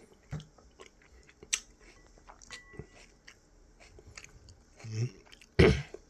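Chewing and scattered small clicks of eating at a table, with a sudden louder knock near the end.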